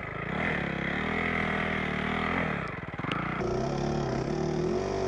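Honda CRF450R's single-cylinder four-stroke engine revving up and down repeatedly, held at higher revs for a second or two each time, as the dirt bike works through deep snow.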